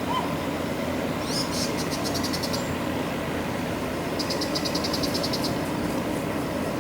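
Steady low engine drone with two bursts of a rapid high-pitched trill, about nine pulses a second, one a second or so in and another past the middle.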